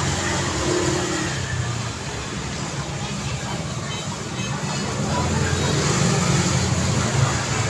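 Daytime road traffic: a steady wash of passing vehicles and tyre noise with engines running. About two-thirds of the way in a louder engine comes up as a vehicle passes close.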